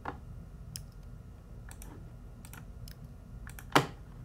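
Computer keyboard keys and mouse buttons clicking irregularly, about two a second, with one louder click near the end: shortcut keys and selection clicks while modeling in Blender.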